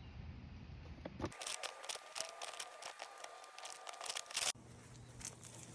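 Faint rustling and crinkling with scattered small clicks and crunches, the sound of close handling, broken by abrupt cuts about a second in and again past the middle.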